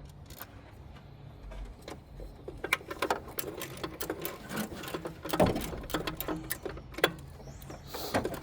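Hand socket ratchet clicking in quick, uneven strokes, with a louder knock about halfway through, as a bolt is worked on the engine.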